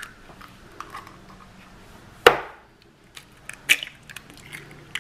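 A raw egg being cracked: one sharp crack about two seconds in, then a few small clicks and crackles as the shell is pulled apart.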